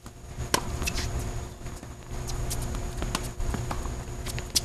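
Tennis rally on a hard court: a loud sharp pop of racket strings hitting the ball about half a second in, then several fainter ticks of shots and bounces, over a low steady rumble.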